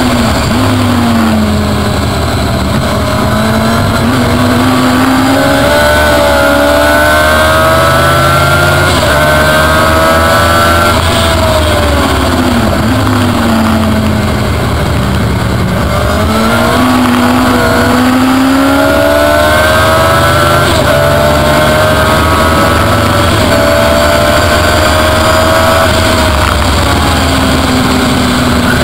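Car engine driven hard on a race track, its pitch climbing as it accelerates, then falling away under braking, twice over, with steady wind and road noise throughout.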